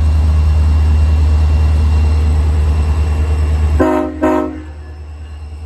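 CSX diesel freight locomotive passing close with a loud, steady low rumble, then its air horn sounds two short blasts about four seconds in, a horn salute; the rumble falls away after the blasts.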